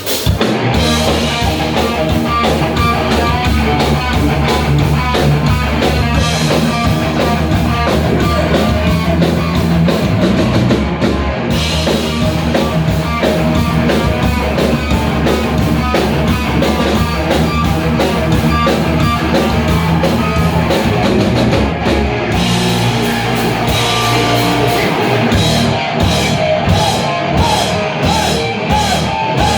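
Rock band playing live: an instrumental passage with electric guitar, bass and drum kit, with even, regular drum hits near the end.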